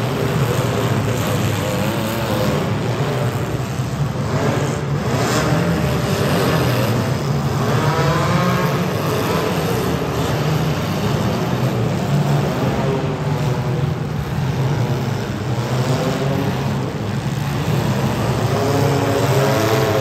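Engines of several compact demolition-derby cars running hard with a steady low drone, revving up and down in pitch a few times.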